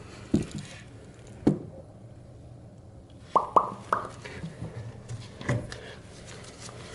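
A handful of short, soft knocks and taps from someone handling things and shifting about in a small bathroom, with a quick group of three near the middle, over a faint steady low hum.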